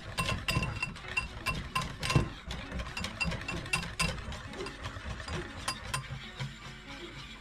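Wire whisk beating beer batter in a ceramic bowl: the wires click and scrape against the bowl about three times a second, growing softer in the second half.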